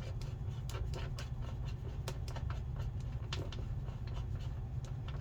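Irregular small metal clicks and scrapes of a small flathead driver working at the screws of a lock, over a steady low hum.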